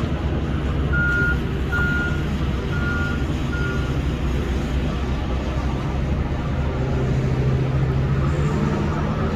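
Heavy machinery engine running, with a reversing alarm beeping four times in the first few seconds; the engine note rises near the end.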